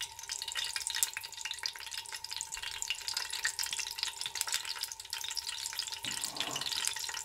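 Whole spices (bay leaves, cumin and fennel seeds) sizzling in hot oil in a frying pan. It is a steady, dense crackle of small pops: the tempering stage, with the spices frying in the oil.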